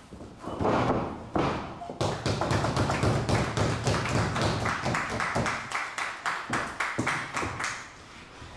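A couple of dull thuds from the wrestling ring, then the audience clapping in a steady rhythm for several seconds, which stops near the end.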